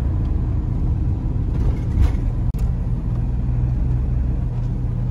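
Steady low rumble of a 2004 CI Riviera motorhome driving along a city street, heard from inside the cab: engine and tyre noise, with a short knock about two seconds in.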